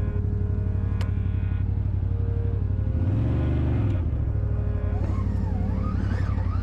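ATV engine running steadily at low trail speed, revving up and back down once about halfway through.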